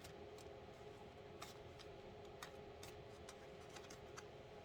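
Near silence with a handful of faint, sharp clicks about a second apart: tarot cards being handled and laid down.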